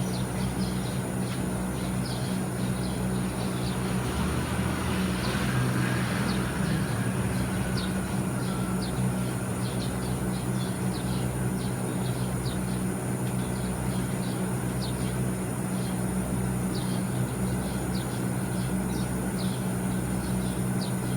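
TECO inverter air conditioner (MS-LV36IH) running with a steady low hum and a constant high-pitched electrical whine, over which come short repeated chirps. The owner likens this abnormal current noise to cicadas or insects and birds. A brief swell of broader noise passes about five seconds in.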